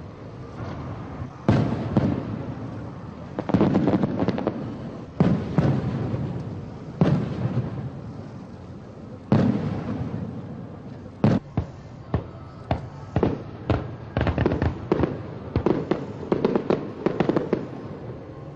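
Aerial fireworks bursting: a string of loud booms, each fading out in an echo, then a quicker run of smaller crackling pops in the last several seconds.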